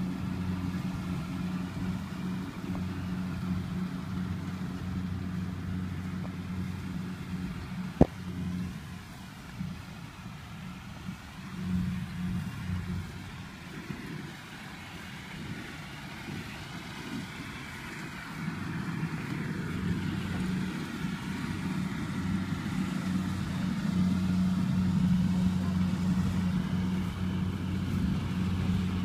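Rice combine harvester's engine running steadily at a distance: an even hum that sinks somewhat in the middle and grows louder toward the end. A single sharp click about eight seconds in.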